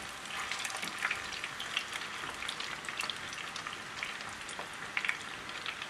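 Bone-in chicken drumette karaage shallow-frying in a little oil in a frying pan: a steady sizzle dotted with many small crackling pops.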